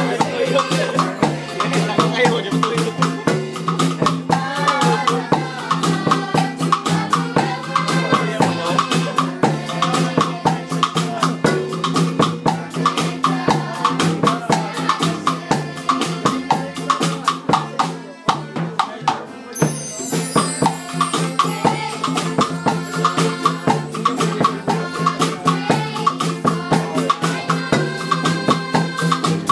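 Music with a fast, steady shaker beat and drum over sustained pitched instruments, with a brief break about two-thirds of the way through.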